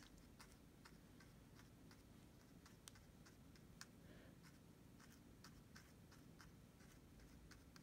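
Near silence with faint, irregular ticks and light scratches of a small round watercolour brush dabbing and pulling paint across cold-press rough watercolour paper.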